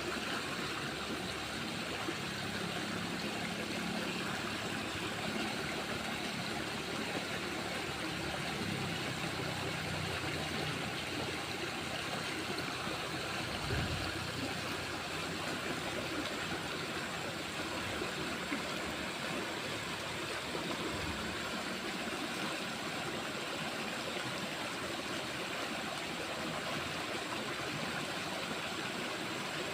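Steady rushing of flowing water, an even unbroken hiss, with a faint low hum in roughly the first third.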